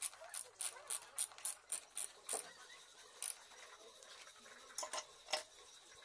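A run of sharp clicks, about four a second, then a few scattered ones, from hands working the motorcycle horn and its mounting parts into place.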